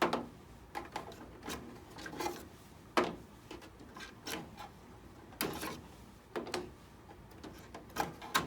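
Ink cartridges being pulled one by one from their slots in a VariQuest Perfecta 2400 poster printer: a series of sharp plastic clicks and short sliding scrapes at irregular intervals.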